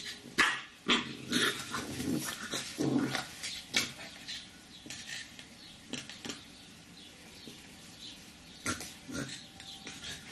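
Chow chow puppies vocalizing in a quick string of short calls during the first few seconds, then only a few faint ones.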